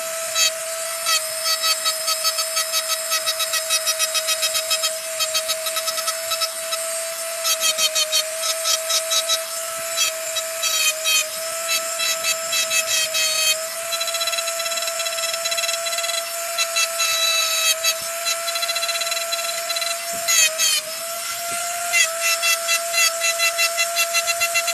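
Electric grinder running steadily with a high whine, broken by stretches of rapid rasping pulses as it grinds; the pitch dips briefly under load about twenty seconds in.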